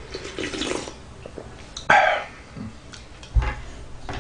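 Broth slurped from a wooden spoon, then a short, loud throat sound about two seconds in as the hot, spicy ramen soup goes down. A low knock follows near the end.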